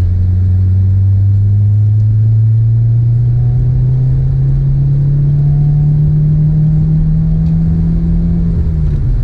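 2020 Subaru WRX's turbocharged 2.0-litre flat-four engine heard from inside the cabin, pulling under steady acceleration with its note rising slowly, then dropping near the end at an upshift.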